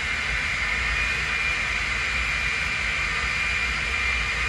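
Handheld hair dryer running steadily on the glued wig lace at the hairline to set the glue: a steady high whine over a rushing hiss of air.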